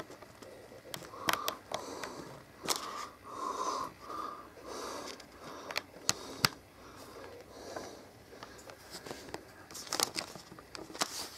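Scattered small plastic clicks and taps as a micro-USB charging cable is handled and worked into the port of an Amazon Fire 7 tablet, with a run of short breathy sounds in the first few seconds.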